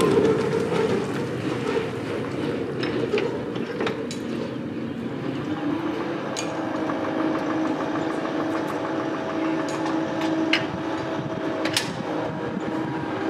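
EZ-Lift tracked spider lift running with a steady mechanical hum while it is being worked, with scattered metal clicks and clanks.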